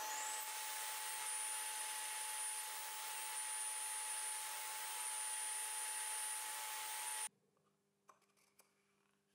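Bench table saw running at speed with a steady whine while box-joint fingers are cut on a crosscut sled. The sound cuts off suddenly about seven seconds in, leaving a few faint clicks of wood being handled.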